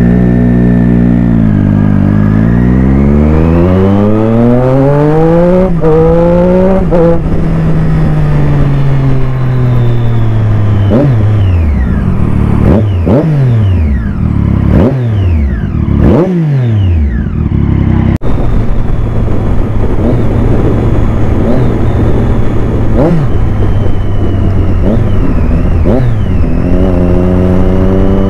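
Sport motorcycle engine accelerating with its pitch climbing for several seconds, then dropping at a gear change. In the middle come about five quick throttle blips, each rising and falling sharply. It then settles into steady running and picks up again near the end.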